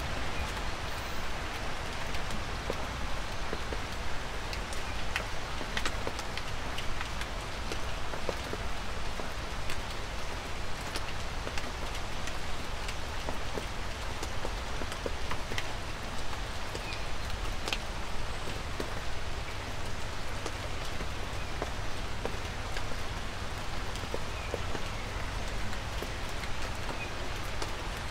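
Light rain falling steadily in woodland, with scattered single drops ticking close by over an even hiss, and a steady low rumble underneath.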